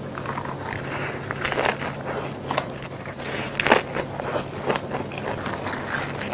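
Close-miked mukbang eating: biting and crunching into food, with a rapid, irregular run of sharp crackles and clicks.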